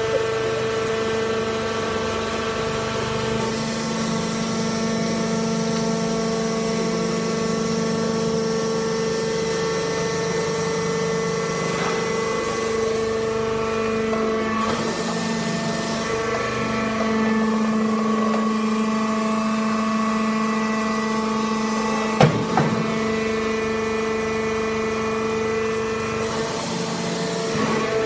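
Hydraulic wood-chip bagging press running with a steady electric-motor and pump hum, its pitch shifting slightly a little under halfway through. A single sharp knock about three-quarters of the way in.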